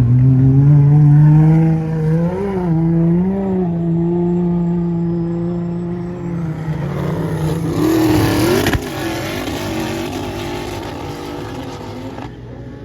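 4x4's engine held at high revs in a steady drone, with two short blips a couple of seconds in, then revving up and back down about eight seconds in before slowly fading.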